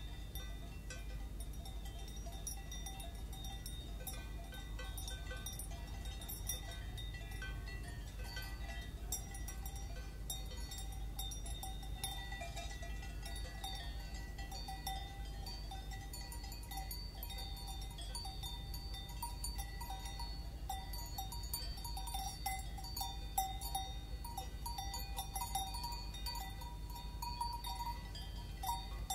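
Several cowbells on grazing livestock clanking irregularly and overlapping, their ringing tones sustained, a little louder in the second half. A steady low background rumble lies beneath.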